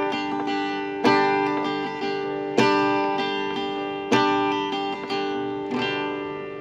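Background music: acoustic guitar strumming four chords about a second and a half apart, each one ringing out. The last chord is softer and dies away near the end.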